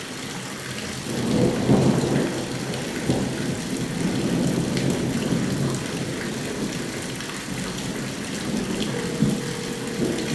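Thunder from a monsoon thunderstorm, rumbling up about a second in and rolling on for several seconds, over steady heavy rain.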